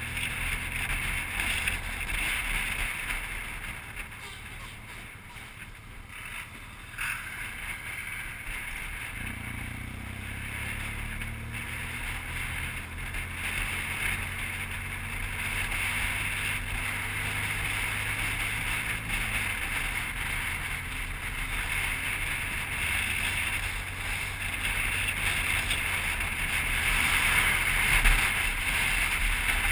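BMW R1200GS motorcycle's flat-twin boxer engine running on the road, with wind rushing over the microphone. The engine note rises slowly as the bike accelerates from about nine seconds in, then drops back at about twenty seconds.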